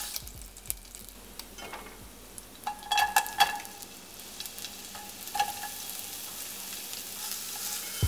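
Garlic and oil sizzling in a ceramic-coated pot, with wooden chopsticks stirring and clicking against it. About three seconds in, a quick cluster of ringing knocks on the pot as onion slices go in, and another single knock a couple of seconds later.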